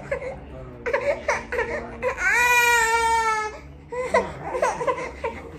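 A baby fussing and crying, with one long, loud wail a little past two seconds in.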